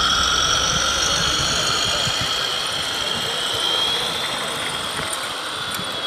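Radio-controlled model truck driving, with a steady high whine in several pitches that drift slowly, over a low rumble that fades about two-thirds of the way through.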